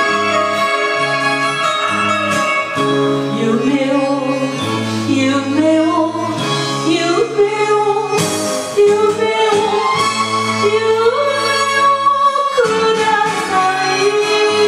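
Japanese enka song: orchestral backing with a woman singing the melody, her voice coming in about four seconds in.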